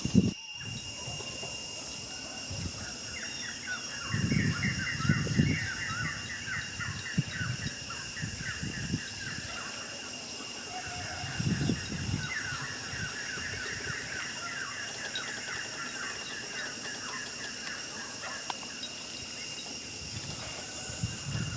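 A bird chirping in two long, fast runs of short, quick notes, over a steady high-pitched buzz. A few low thuds and rustles are mixed in.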